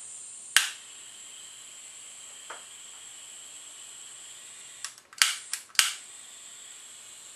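Butane soldering iron's push-button auto-ignition clicking repeatedly while it fails to light at first: one sharp click, a faint one, then a quick run of four clicks about five seconds in. A steady hiss of butane flowing from the tip underlies the clicks.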